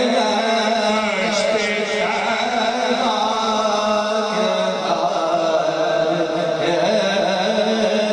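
Men's voices singing a steady, held devotional chant during a naat recital, the pitch shifting slowly now and then.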